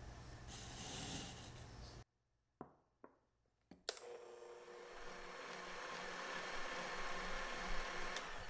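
Electric hand mixer whipping egg whites and sugar into meringue, its beaters running steadily in a glass bowl. It breaks off a little after two seconds, then runs again from about four seconds in, slightly louder as it goes, and stops near the end.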